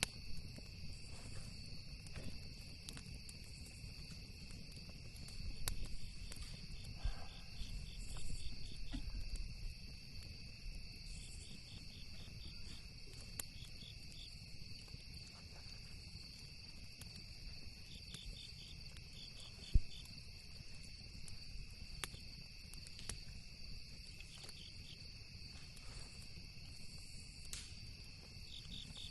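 Campfire crackling with scattered small pops and one sharper pop about two-thirds of the way through, over steady high-pitched cricket trilling with rhythmic chirps and a low rumble.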